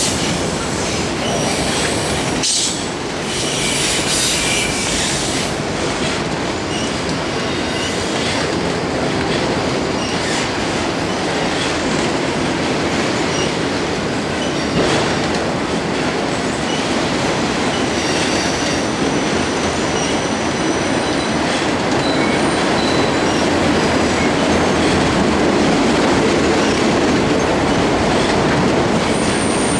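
Freight train cars rolling past on steel rails: a steady rumble and clatter of wheels over the track, with brief high-pitched wheel squeals coming and going.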